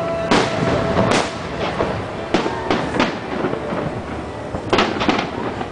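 Aerial fireworks shells bursting in a grand-finale barrage: about eight sharp bangs, some coming in quick pairs, over a continuous low rumble of more distant explosions.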